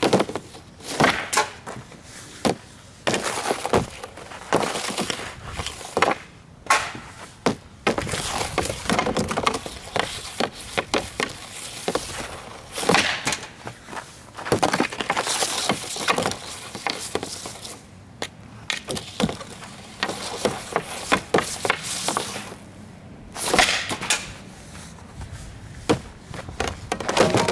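A series of hockey shots with a Bauer Total One NXG composite stick: the blade scrapes along the ice, then strikes the puck with a sharp crack, over and over every second or two.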